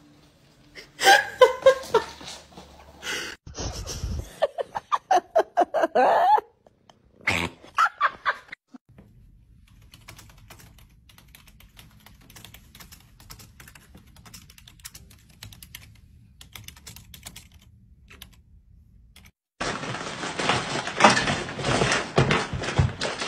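Fast typing on a computer keyboard: light key clicks for about ten seconds in the middle. Louder, irregular bursts of sound come before it, and a dense rush of noise starts near the end.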